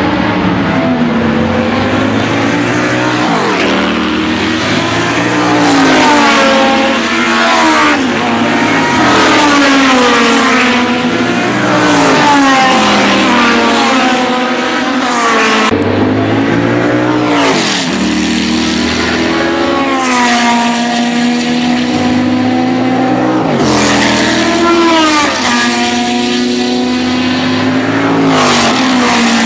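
Several historic open-cockpit sports-racing cars running at speed. Their engines climb in pitch and drop sharply again and again as they change gear and pass by.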